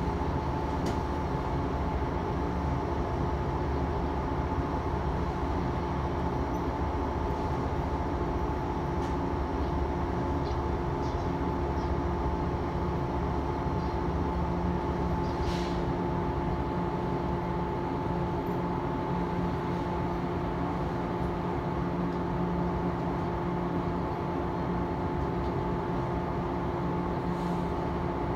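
Steady hum and noise inside an electric commuter train car, with several steady tones held at an even pitch and a few faint clicks.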